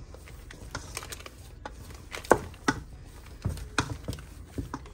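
Irregular light clicks and knocks of kitchen utensils being handled, about a dozen, with two sharper knocks a little past two seconds in.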